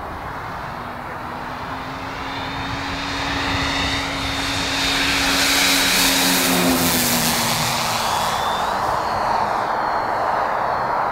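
Twin engines and propellers of an ASM F7F Tigercat radio-control model plane making a low fly-by. The drone grows to its loudest about six seconds in, then drops in pitch as the plane passes and pulls away.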